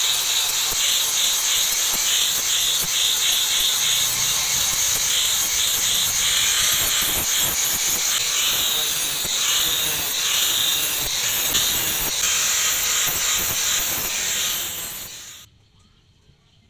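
Loud, steady hissing whir of a motorised workshop machine running, which winds down and stops about a second before the end.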